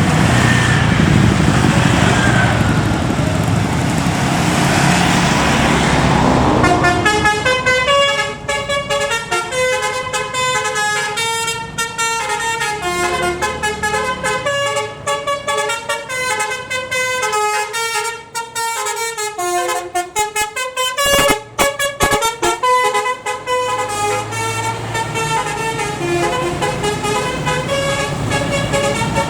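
Basuri telolet horn on a Scania K410 bus playing a quick melody of stepped notes. It starts about seven seconds in, after steady road and engine noise, and runs on with a few short breaks.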